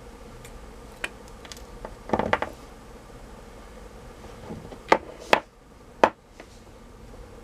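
Sharp clicks and knocks of hand tools and metal strips against the 18650 cells of a notebook battery pack being taken apart: a short rattle about two seconds in, then three separate strikes near the end.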